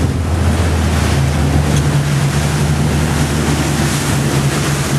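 Sportfishing boat's engines running steadily under way while trolling, over the rush of the churning wake and wind on the microphone; the engine hum grows fuller about a second in.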